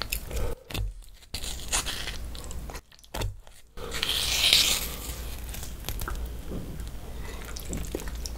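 A person chewing food close to the microphone, with crisp crunching bites, dropping out twice for a moment in the first few seconds.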